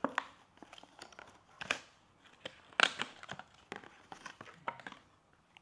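Cardboard packaging crinkling and rustling in irregular short bursts as a small white box is opened and its contents pulled out, with a louder rustle about three seconds in.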